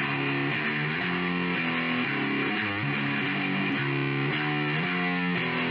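Outro music: a distorted electric guitar playing a steady chord pattern.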